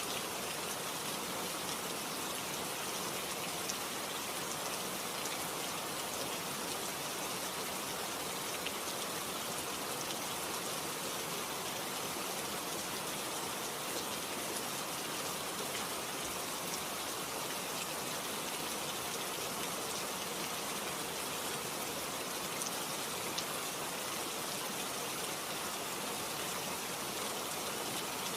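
Steady rainfall: a dense hiss of rain with scattered individual drops ticking on surfaces, even in level throughout.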